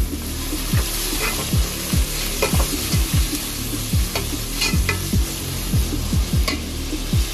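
Raw chicken pieces and sliced onions sizzling in hot oil in a metal pot, stirred with a metal ladle that scrapes against the pot now and then.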